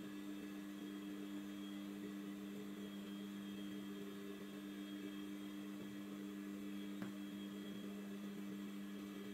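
Steady electrical hum, with one small click about seven seconds in.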